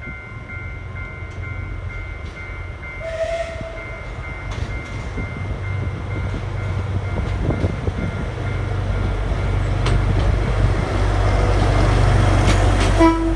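Alishan Forest Railway train hauled by a steam locomotive approaching, its low rumble growing steadily louder, with a short toot near the end.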